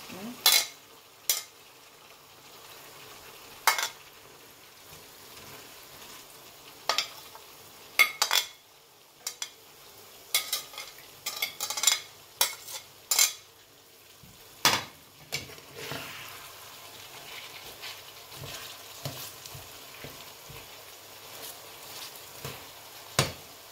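Slotted metal spatula scraping and clacking against a plate as diced potatoes and carrots are pushed into a frying pan, with about a dozen sharp knocks in the first half. In the second half the spatula stirs the pan with small ticks over a faint steady sizzle.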